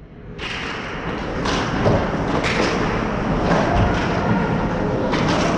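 Ice hockey play in an indoor rink: a steady wash of skates on the ice, with sharp clacks and thuds of sticks, puck and boards scattered through it, the loudest about two seconds in. The sound comes in suddenly from silence at the start.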